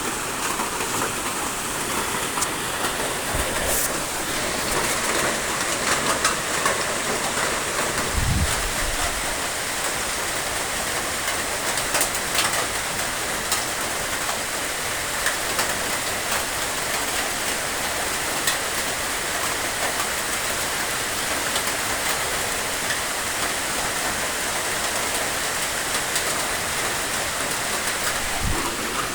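Steady rain falling, an even hiss with scattered drop ticks, with a brief low thump about eight seconds in.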